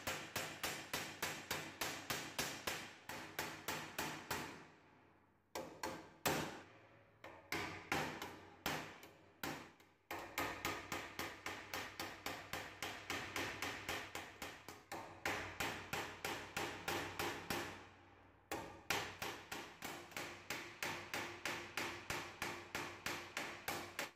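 Hammer blows on metal, about three a second, each with a short ring, in steady runs broken by a few brief pauses.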